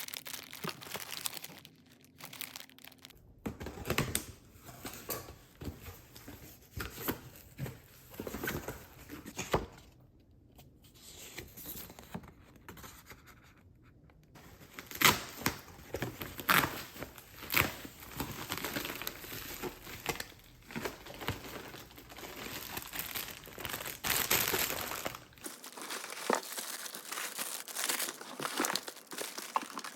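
Packaging being unwrapped by hand: irregular crinkling and tearing of wrapping with small handling clicks and knocks, the background changing abruptly at a few cuts.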